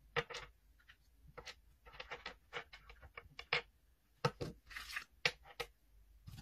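Blackview AirBuds 5 Pro plastic earbuds and charging case being handled and set down on a table: a quick run of light clicks and taps, with a short rustle about five seconds in.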